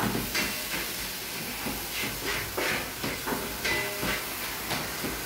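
Onion frying in a pan with a steady sizzle, a spatula scraping against the pan in irregular strokes as it is stirred.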